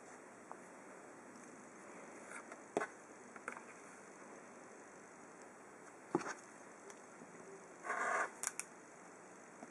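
Rotary cutter rolling along the edge of a quilting ruler, slicing through fabric on a cutting mat: a short rasping cut about eight seconds in, preceded by a few light taps as the ruler and fabric triangles are set down, over a steady hiss.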